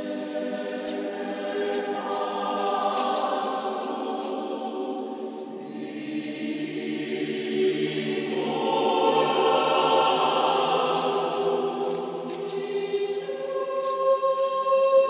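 A choir singing slow, sustained chords. The lowest voices drop lower about five seconds in, and a high held note enters near the end.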